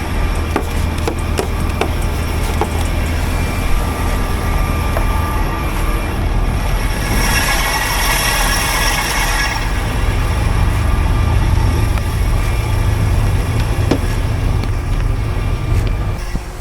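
Vehicle engine running with a steady low rumble and scattered light ticks. About seven seconds in, a loud hissing starts and lasts roughly two seconds.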